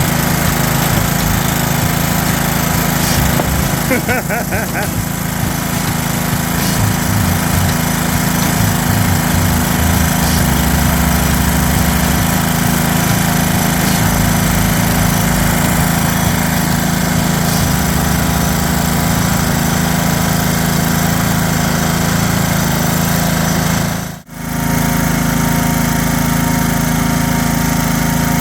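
Small gasoline engine of a Ryan core aerator running steadily, with a brief drop-out about three-quarters of the way through.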